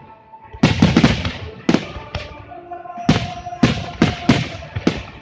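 Aerial firework shells bursting overhead in quick, uneven succession: about ten sharp bangs, each trailing off in a short rumbling echo.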